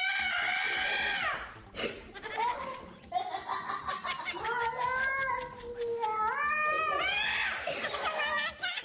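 A cat yowling in several long, drawn-out calls that rise and fall in pitch, one after another with short breaks between them.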